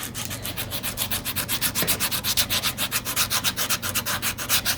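Coarse-grit sandpaper rubbed by hand over wood in rapid, even back-and-forth strokes, a steady rasping scrape.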